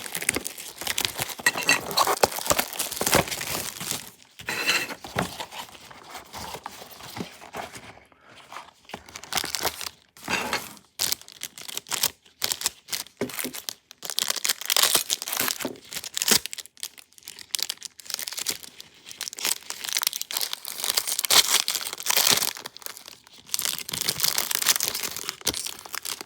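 Plastic wrapping of a trading-card box crinkling and tearing in irregular bursts with short pauses, as the packaging is opened and handled.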